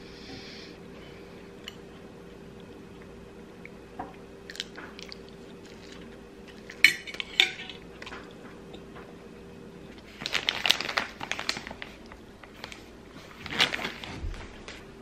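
Chewing, then chopsticks clicking against a ceramic plate about seven seconds in. Later come two bursts of clattering as the dishes are handled and moved, ending in a dull thump.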